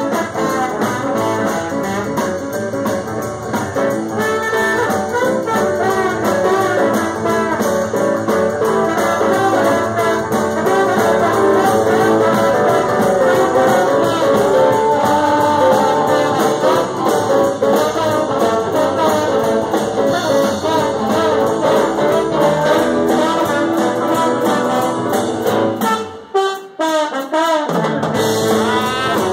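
Live band playing with a trombone lead over keyboard, electric guitars and drums. A few seconds before the end the band drops out briefly, then comes back in.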